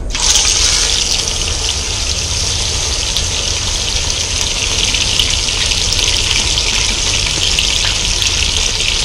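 Sirloin tip roast sizzling as it sears in a Dutch oven set right on hot charcoal. The loud, steady sizzle starts the moment the meat goes in, over a low rumble.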